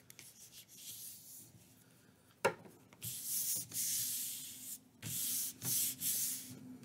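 Palms rubbing and smoothing a freshly glued paper sheet flat onto a manila file folder, in several long swishing strokes during the second half. A single sharp knock comes about two and a half seconds in.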